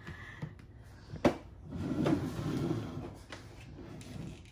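Plastic wheeled cooler (Coleman Xtreme 5) being handled at its lid: a sharp knock about a second in, then about two seconds of scraping and rubbing.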